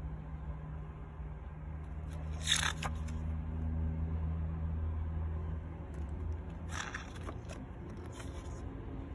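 Pages of a glossy CD booklet being turned by hand: a short paper rustle about two and a half seconds in and another around seven seconds in, over a steady low hum.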